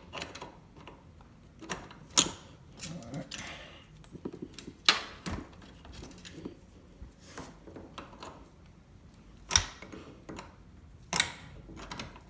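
Scattered metallic clicks, clinks and small rattles of hand tools and cable hardware while an ATV's throttle cable is adjusted, with four louder sharp clicks spread through.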